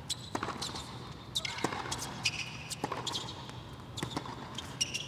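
Tennis rally on a hard court: the ball is struck by the rackets and bounces, giving sharp hits about every second or so, with short high squeaks between them.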